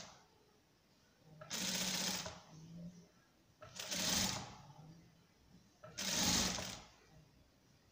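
Electric sewing machine stitching bias binding onto a fabric edge in three short runs, each under a second, with quiet pauses between them.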